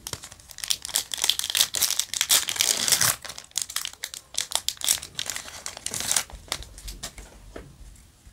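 Wrapper of a Yu-Gi-Oh! Duel Overload booster pack crinkling and tearing as it is ripped open by hand, in many quick rustling bursts that die away near the end.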